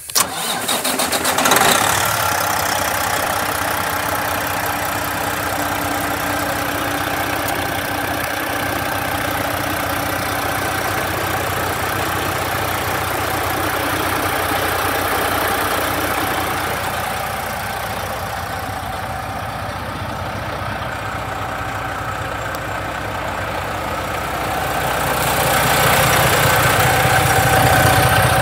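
Diesel engine of a 2007 Freightliner Columbia truck tractor cranking and catching at once, rising briefly, then settling into a steady idle. The idle grows louder near the end.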